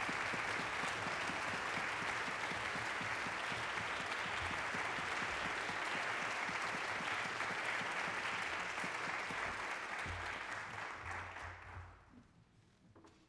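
Concert audience applauding, a dense steady clapping that dies away near the end.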